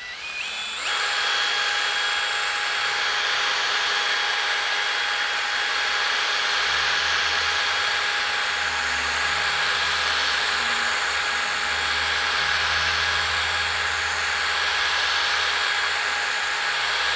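Cordless drill spinning a flex hone inside an oiled cast-iron cylinder bore of a diesel engine block, honing it. The drill winds up over about the first second, runs at a steady whine, then stops suddenly near the end.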